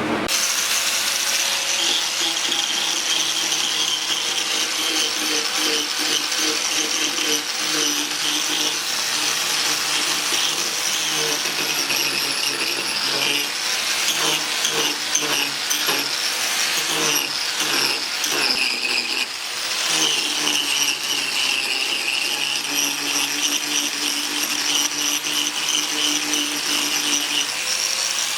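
Angle grinder with a carving disc running and cutting into hardwood: a steady high motor whine over grinding noise. The sound turns uneven and choppy in the middle stretch as the disc bites in and lifts off.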